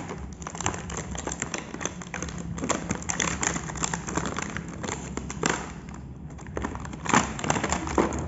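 Clear plastic packaging crinkling and crackling as it is torn open by hand, in quick irregular bursts.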